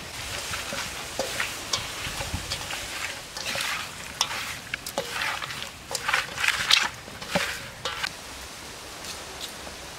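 Raw shol (snakehead) fish pieces being mixed by hand with salt and turmeric in a stainless steel bowl: wet rubbing and slapping of the pieces, with small clicks and knocks against the bowl. It goes in irregular bursts and dies down about eight seconds in.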